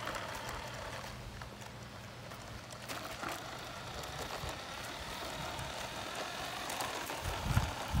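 Small electric motor of a toy remote-control semi truck whirring faintly as its plastic wheels roll over concrete. Low thumps come in near the end.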